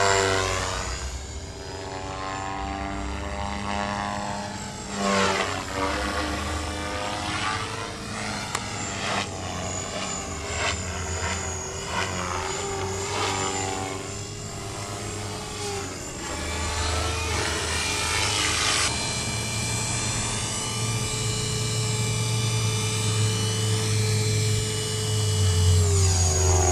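Align T-Rex radio-controlled helicopter in flight: a steady rotor and motor whine whose pitch and tone sweep up and down as it manoeuvres, settling into a steadier whine in the last third.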